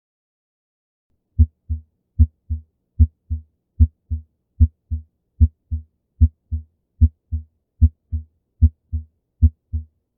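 Normal heart sounds, a steady lub-dub: a louder first sound followed about a third of a second later by a softer second sound, repeating about 75 times a minute with quiet gaps between the beats. They begin about a second and a half in.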